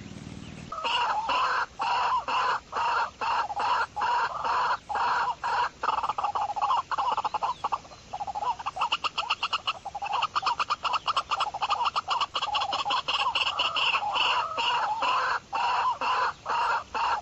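Fowl clucking: a long run of short calls, about two a second, starting suddenly about a second in, with faster rattling runs through the middle.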